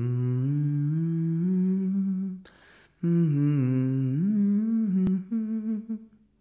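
A low voice sings a slow melody in long held notes, stepping upward in pitch. There are two phrases with a short break between them, then a few shorter notes near the end.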